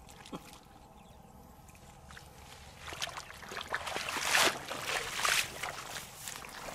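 Bare feet squelching and splashing step by step through wet mud and shallow water among low plants, starting about three seconds in.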